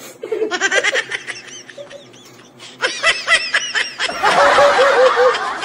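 A man laughing uncontrollably as he is tickled, in rapid high-pitched bursts, with a woman's laughter joining in; the laughter grows louder and denser about four seconds in.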